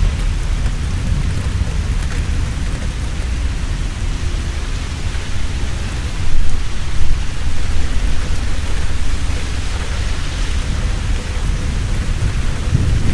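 Heavy rain falling steadily, with a continuous low rumble of thunder that swells briefly about halfway through.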